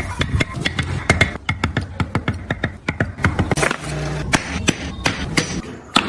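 Rapid, irregular sharp taps and knocks of hand carving tools striking wood, several a second.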